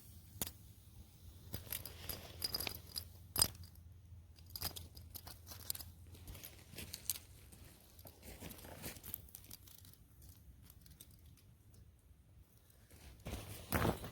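Crunching and scraping of a magnet dragged through charcoal and ash in a fire pit, with scattered sharp clicks as nails and tacks catch on it. The loudest click comes about three and a half seconds in, and a louder crunching stretch comes near the end.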